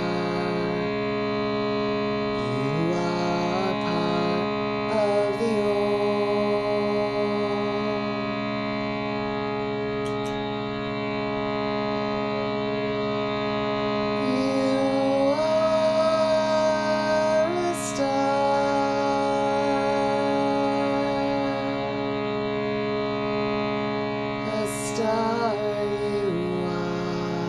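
Sound-healing music: a sustained drone of many steady, overlapping tones, with a wordless voice toning over it, sliding slowly between pitches.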